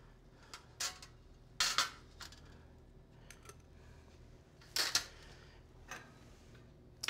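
Metal kitchen tongs clinking against a wire cooling rack, metal tray and ceramic plate as beef medallions are lifted and set down: a few short, sharp clinks, the loudest about two seconds in and again near five seconds.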